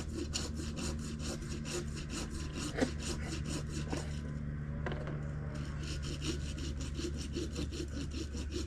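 Handsaw cutting through dead ash wood in quick, even strokes, about four a second, under a steady low hum.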